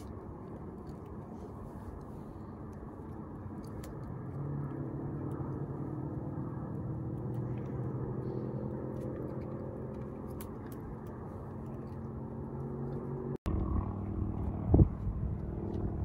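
Low wind rumble on the microphone, with a distant engine droning steadily from about four seconds in. After a cut near the end, louder gusts of wind buffet the microphone.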